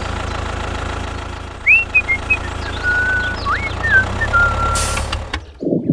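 Tractor engine running steadily with a low rumble that cuts off shortly before the end. A few high whistle-like chirps sound over it from about two seconds in.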